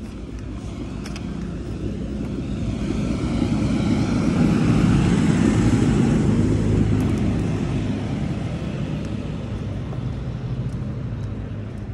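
Tractor towing a Pichon slurry tanker passing by: its engine drone and rolling noise build up, peak about five seconds in, and fade away.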